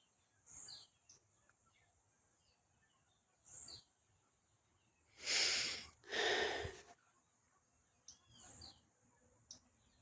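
Countryside ambience: birds give short chirps that fall in pitch, several times, over a steady high insect drone. In the middle come two loud, breathy rushes of noise, one right after the other.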